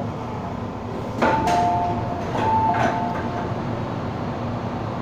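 MTR M-Train's passenger doors opening at a station stop: a clunk followed by a two-tone electronic chime, repeated once about a second later, over the steady hum of the standing train.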